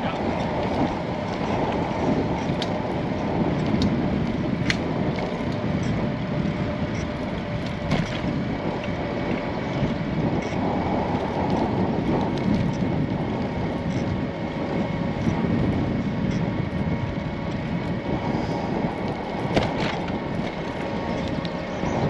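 Steady rolling noise of a bicycle ride, tyres on the path with wind on the microphone. A faint steady whine sits underneath, and a few sharp clicks or rattles come through, about 5 s, 8 s and near the end.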